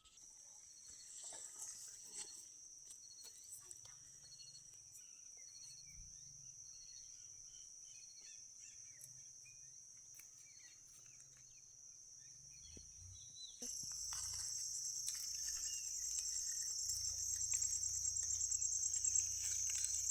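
Insects chirring in a steady high-pitched chorus, with a faint short chirp repeating about twice a second over the first half. The chorus gets suddenly louder about two-thirds of the way through.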